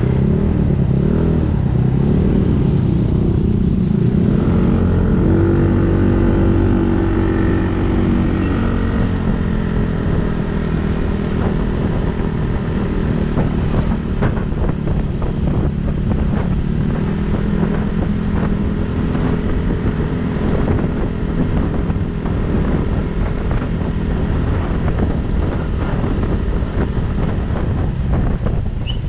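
Motor vehicle engine running, its pitch wavering and climbing over the first several seconds, then holding fairly steady.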